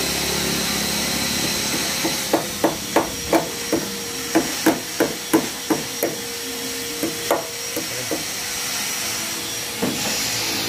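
Hand hammer tapping on metal, setting the tailgate damper's mounting stud into a new hole in a Nissan Navara D40 tailgate. The taps start about two seconds in and come about three a second for some five seconds, then a few scattered taps and a last one near the end.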